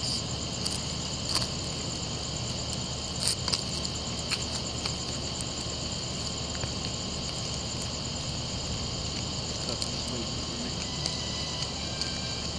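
Night chorus of crickets: steady, high, shrill trilling with no break, with a few short clicks scattered through it.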